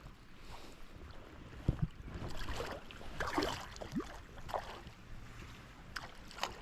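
Creek water splashing and rushing, with wind buffeting the microphone. There are two sharp knocks a little under two seconds in, then a stretch of irregular splashing.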